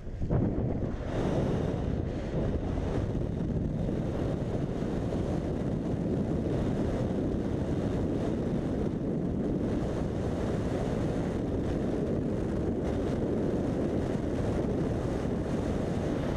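Wind rushing over a helmet-mounted camera's microphone during a wingsuit flight, a steady low roar of airflow at flying speed.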